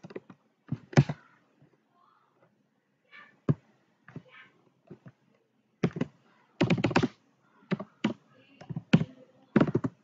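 Computer keyboard keystrokes: irregular clicks and taps while code is typed. They come sparsely at first, then in quick runs a little after the middle and again near the end.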